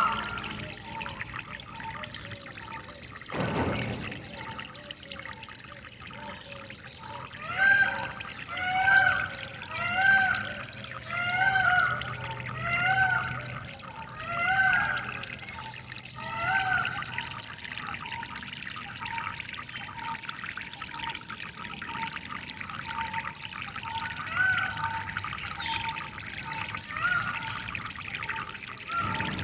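Water trickling and pouring steadily. A bird repeats the same arched, rising-and-falling call about seven times, roughly one call a second, through the middle, with a few more calls later. There is a single dull thud a few seconds in.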